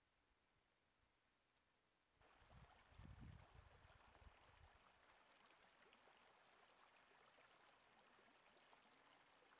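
Near silence, then about two seconds in a small open winter stream starts to be heard running between snowbanks, a faint, steady rush of water. Soon after it starts there is a brief low rumble lasting about two seconds.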